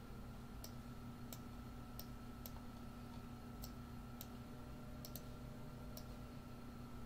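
Computer mouse clicking about nine times at irregular intervals, a few in quick pairs, as a map is moved and a drawing tool is picked, over a faint steady hum.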